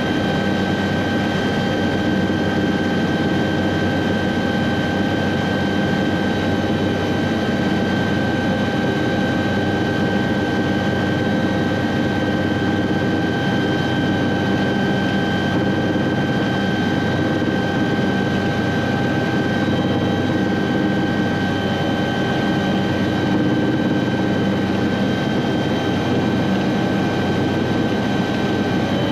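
Cabin noise of an Aérospatiale SA315B Lama helicopter in flight, heard from inside the cockpit. Its Artouste turboshaft engine and rotor run at a constant pitch and level, a steady high whine over a lower rumble.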